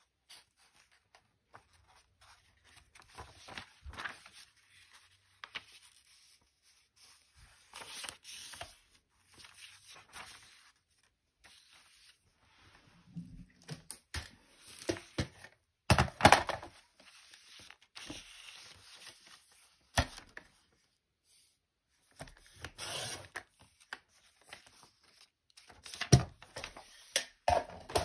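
Sheets of patterned craft paper rustling and sliding as they are handled and lined up on a paper trimmer, in short scattered bursts with a few sharp taps.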